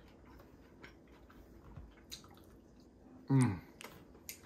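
A man eating a mouthful of rice and fish, with faint wet mouth sounds and small clicks. About three seconds in comes a loud, short 'mmm' of enjoyment that falls in pitch.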